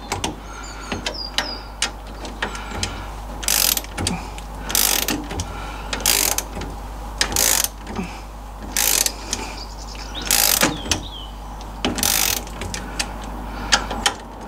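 Ratchet torque wrench being swung back and forth on the nylock nuts of an MGB's rear axle U-bolts: short runs of ratchet clicks repeating roughly every second and a quarter as the nuts are pulled down toward 20 newton metres.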